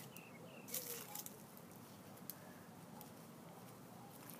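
Gloved hands digging and pressing damp soil to plant onions: faint scraping and patting, with a crisp scratch about a second in.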